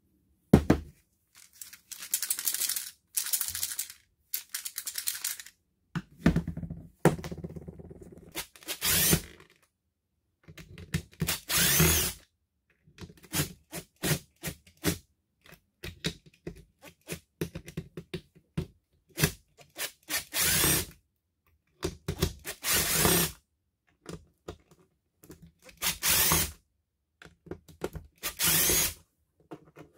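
A cordless drill motor running in short bursts, about a dozen trigger pulls of half a second to a second each, with clicks and knocks of handling between them.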